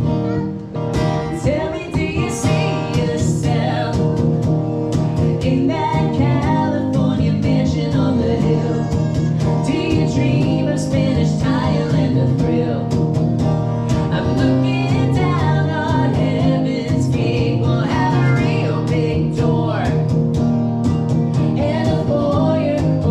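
Live acoustic duo playing a song: a woman sings into the microphone over a strummed acoustic guitar, amplified through a PA.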